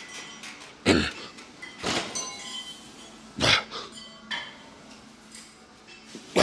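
A man breathing out hard and grunting with each rep as he strains through a heavy set of machine dips, about five sharp breaths one to two seconds apart.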